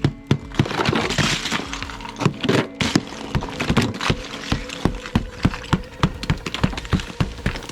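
A rapid run of sharp cracking knocks, about two to three a second, as of hard ice or packed snow being struck and broken, with steady background music underneath.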